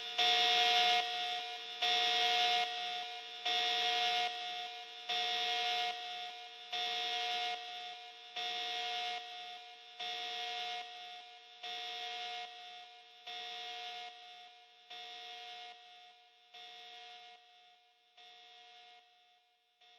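Synthetic 'glitch' alarm sound effect: a harsh buzzing alarm tone pulsing about a dozen times, roughly every second and a half, over a faint steady hum, growing gradually quieter as it fades out.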